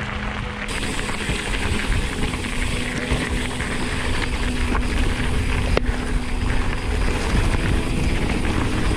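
Wind buffeting the microphone and the rolling rumble of a mountain bike on a rough track: a loud, steady rushing noise.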